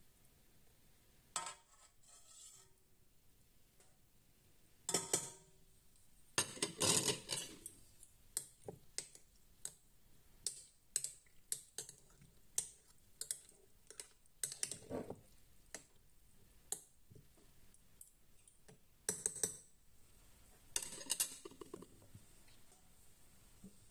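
Metal spoon and utensils clinking and tapping against a glass jar and a steel pot and being set down on a plate, while a jar of pickled beetroot is packed. Irregular clicks and knocks, busiest about five to eight seconds in.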